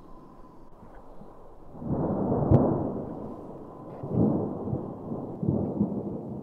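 Thunder from a nearby storm: a low rolling rumble that builds about two seconds in with a sharp crack near its start, then rolls on in two more swells.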